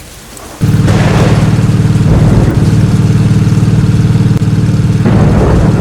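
Engine running steadily and loudly, cutting in abruptly about half a second in.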